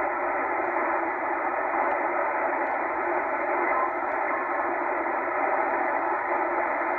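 Steady shortwave static hiss from a Tecsun H-501X receiver in USB mode as it is tuned up through an empty stretch just above the 20-metre amateur band, with no station heard. The hiss is thin and cut off at the top, as through a single-sideband filter.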